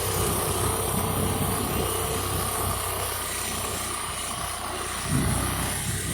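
Motorcycle engine running steadily while riding along a rough dirt road, with a louder rumble about five seconds in.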